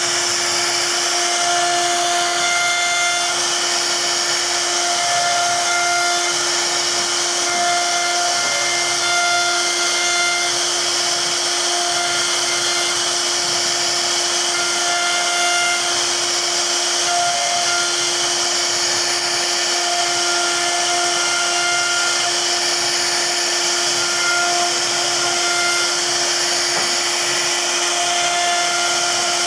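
CNC router spindle running at high speed with a steady whine while its bit carves a relief pattern into a wood panel, the cutting adding a constant hiss. A second, higher tone keeps cutting in and out as the bit's load changes along the carving path.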